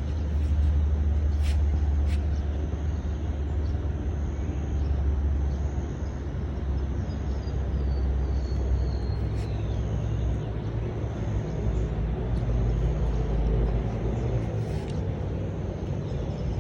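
Outdoor ambience: a steady low rumble, with faint short high chirps repeating throughout and a brief falling whistle about nine seconds in.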